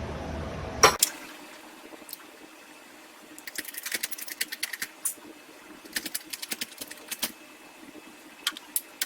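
Bursts of rapid, light metallic clicking from hand work on a steel control arm as a freshly pressed silent block is nudged into its final position, with a few single clicks near the end.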